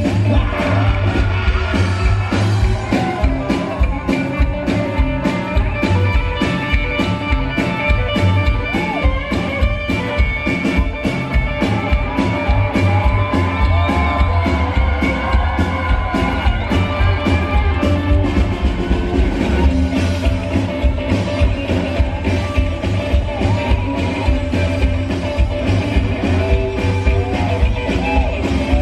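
Rockabilly trio playing live at a driving beat: hollow-body electric guitar, upright double bass and a small stand-up drum kit.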